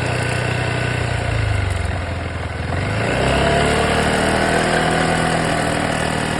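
Yamaha XMAX 300 scooter's single-cylinder engine running, its pitch dipping about two seconds in and then rising as it revs up about three seconds in, holding there. It carries a weird noise from the motor that the owner cannot identify.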